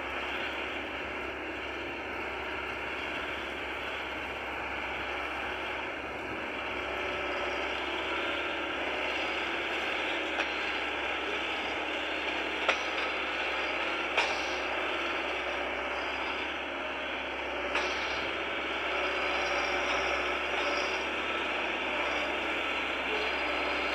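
Engine of a tractor-mounted sugarcane grab loader running steadily as it loads cane, with a few sharp metallic knocks from the grab and its linkage.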